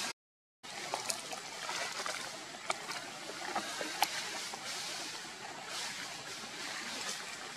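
Steady outdoor background hiss with scattered light clicks and rustles. The sound cuts out completely for about half a second right at the start.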